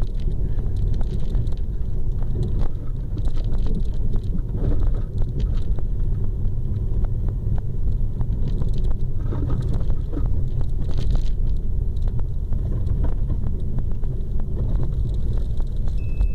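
Renault Mégane RS driving on a snow-packed road, heard inside the cabin: a steady low rumble of engine and tyres, with light scattered ticks.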